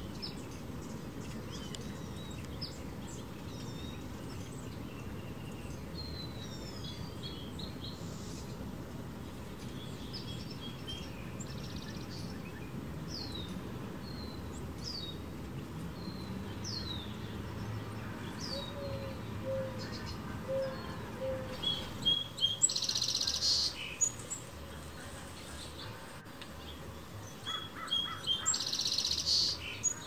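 Small backyard songbirds calling: many short, quick falling chirps through the first half, then two louder bursts of song of about two seconds each in the second half, over a steady low background rumble.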